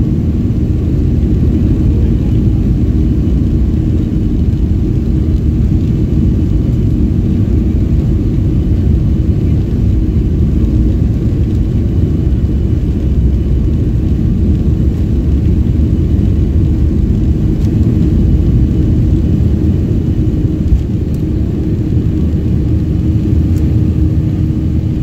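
Jet airliner's cabin noise during the takeoff roll: the wing-mounted jet engines at takeoff power, a loud, steady rumble with a faint hum.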